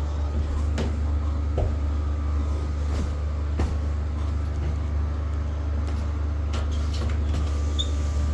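A steady low machine hum with a few faint knocks.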